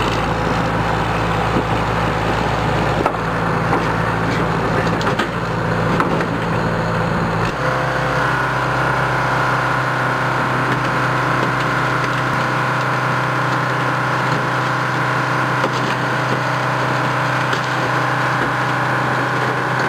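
A car crusher's press flattening a 1967 Ford Galaxie, the steel body and glass crackling and creaking as it gives way, over a steady engine drone whose note shifts about seven or eight seconds in.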